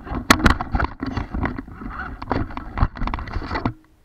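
Irregular knocking, clattering and scraping on a GoPro camera fixed to a remote-control car as a dog bumps and pushes against it.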